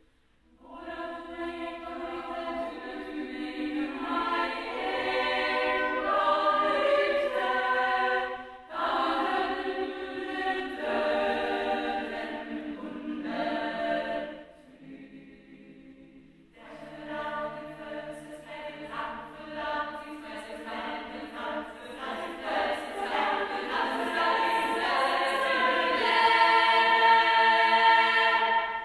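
Women's choir singing a cappella, sung phrases with short breaks between them. A soft passage comes about halfway, then the singing swells louder toward the end.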